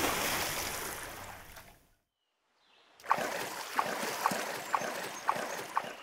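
A rush of water fades away, then after a second of silence oars splash in a steady rhythm, about two strokes a second, over flowing water.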